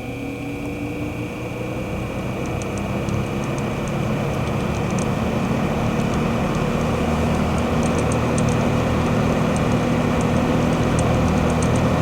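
Vintage General Electric W-26 five-blade box fan starting up on low speed. The motor hum and blade whir grow steadily louder over the first several seconds as it comes up to speed, then settle into a steady run, with faint scattered ticks throughout.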